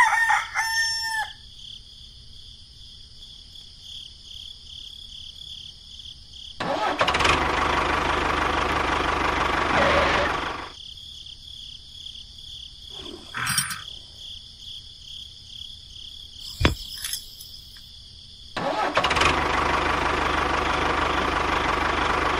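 A rooster crows at the very start over a steady high-pitched buzzing background. Twice, for about four seconds each (about a third of the way in and again near the end), a loud tractor engine sound runs, with a single sharp click in between.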